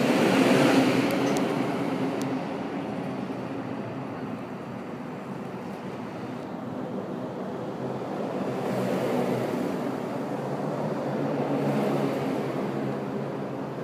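Road traffic crossing a steel-truss bridge: cars driving on its open metal grate deck, with a steady hum. It is loudest about a second in and swells again twice later.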